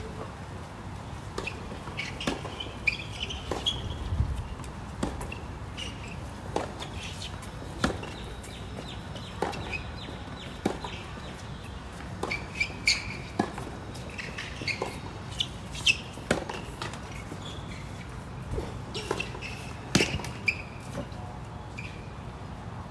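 Tennis rally on a hard court: sharp pops of the ball struck by rackets and bouncing, about every second or so, with short high chirps scattered between them.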